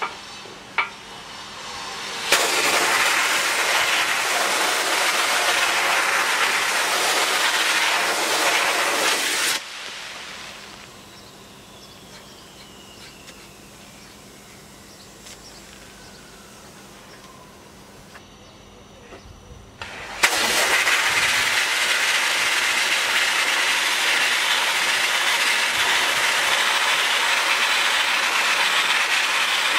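Sandblasting gun, fed by an air compressor, blasting abrasive onto a moped frame: a loud steady hiss that starts about two seconds in, stops after about seven seconds, and starts again about twenty seconds in.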